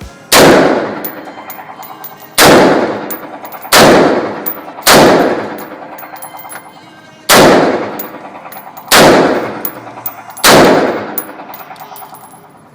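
Seven single gunshots fired at an uneven pace, one to two and a half seconds apart, each a sharp crack followed by an echo that dies away over about a second.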